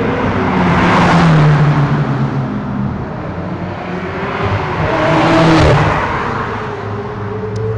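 Ferrari sports cars driving past one after the other in a parade, the engine and tyre sound swelling as each one passes, loudest about a second in and again about five and a half seconds in.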